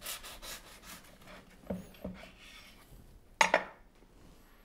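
A knife sawing through a burger bun in a few quick rasping strokes, followed by two soft knocks and then a sharp knock on the wooden board about three and a half seconds in.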